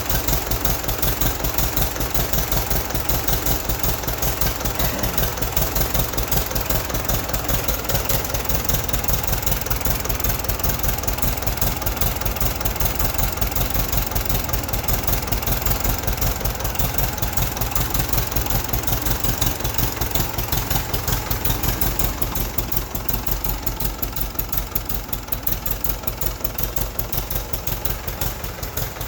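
1959 Case 800 tractor's diesel engine being turned over on the starter after its fuel system has been bled, with a steady, even pulsing that keeps up throughout.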